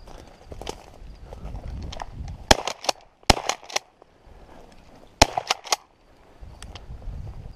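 Shotgun fired twice, about two and a half seconds apart. Each loud shot is followed by a few quieter sharp cracks.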